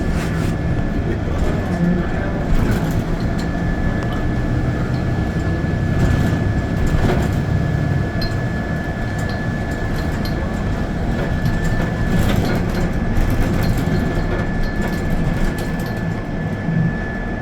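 Steady engine and road rumble heard from inside a moving bus, with a thin steady high whine over it and a few scattered rattles.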